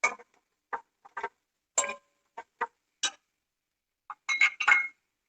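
A metal spoon clinking and tapping against cookware, about a dozen short, ringing clinks at uneven intervals, several close together near the end, as onions are added to the pan and stirred.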